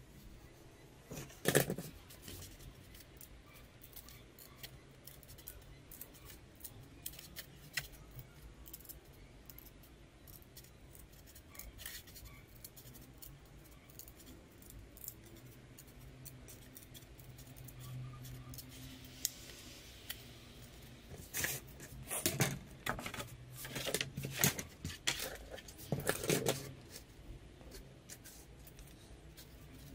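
Snap-off utility knife slicing through a thin balsa sheet along a plastic set square, one sharp cut about a second and a half in. Later a cluster of scraping and tapping sounds, loudest between about 21 and 27 seconds.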